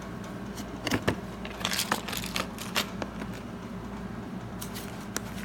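Small gear being handled and rummaged through in a box: scattered clicks and light rattles, several in quick clusters.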